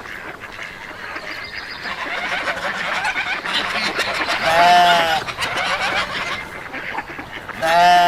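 A flock of geese honking and calling over one another, growing louder. Two loud single honks stand out, one a little past the middle and one near the end, each rising and falling in pitch.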